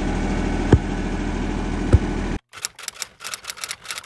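A hand tamper thumps the dirt floor of a post hole twice, about a second apart, over a steady engine drone. After a cut, typewriter keys click rapidly as a title types out.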